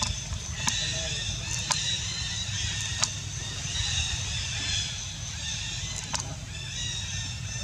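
Outdoor ambience: a steady low rumble under a dense, high-pitched chirping chorus, with several sharp clicks scattered through it.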